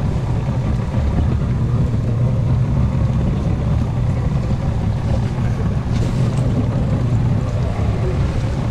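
Boat engine running with a steady low drone, with wind buffeting the microphone.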